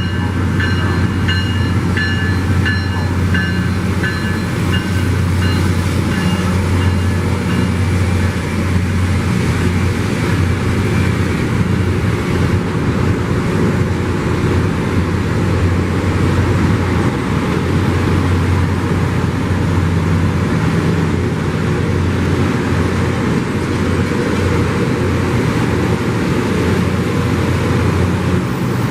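Loram rail grinder train at work: its engines and grinding stones against the rail make a loud, steady, dense noise over a deep hum. For the first several seconds a rhythmic high ringing pulses over it and fades out.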